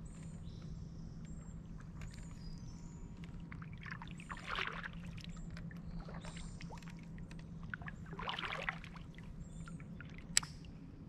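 Water sloshing against a kayak hull twice, over a steady low hum, with short high bird chirps throughout and a sharp click near the end.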